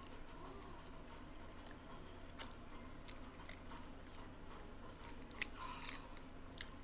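Close-up eating sounds: a person chewing and biting food, with scattered small wet clicks and crunches, the sharpest about five and a half seconds in, over a faint steady hum.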